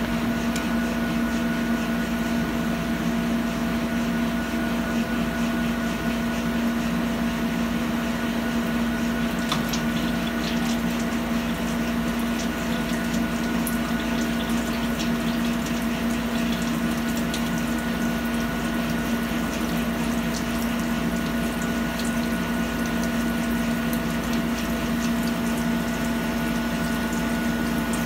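CNC lathe turning a large metal ring under flood coolant: a steady machine hum with a few constant higher tones, over the hiss and splash of coolant spray. A few faint ticks come around the middle.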